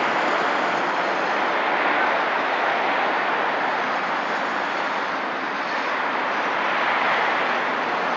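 Steady noise of busy multi-lane road traffic passing close by, mostly tyre hiss with engine noise mixed in, unbroken throughout.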